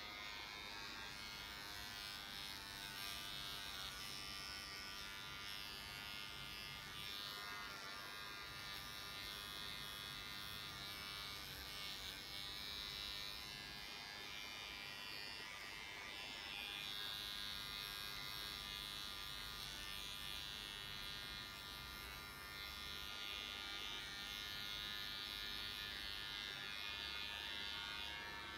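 Electric pet grooming clippers running with a steady buzz.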